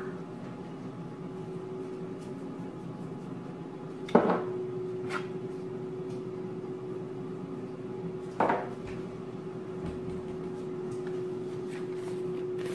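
Kitchen utensils and containers knocking sharply against pans or the counter: a few single clinks, the loudest about four and eight seconds in. Under them is a steady low hum.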